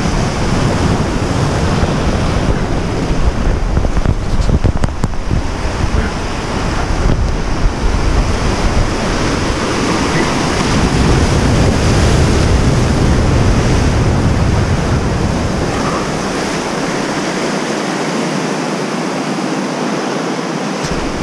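Sea waves breaking and washing over shoreline boulders, with wind buffeting the microphone. The low rumble drops away near the end.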